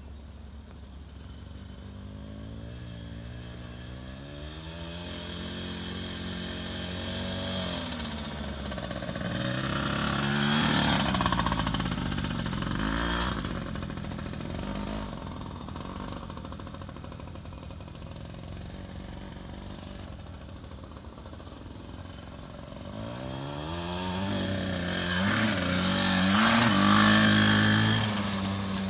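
Small two-stroke kids' dirt bike riding a grass track, its engine revving up as it comes near. It passes close twice, about ten seconds in and again near the end, and fades between.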